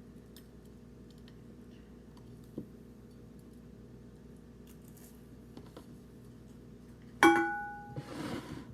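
Faint room noise with a few small clicks. Near the end, a hard object is struck with a sharp clink that rings briefly on several tones, then comes a short scraping rustle.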